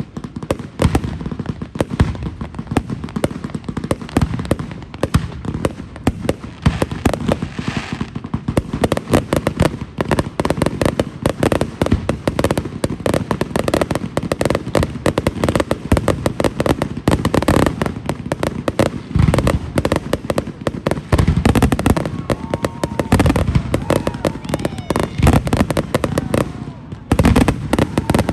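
Fireworks display going off in a dense, continuous barrage of bangs and crackles. Rising-and-falling whistles come through in the last few seconds.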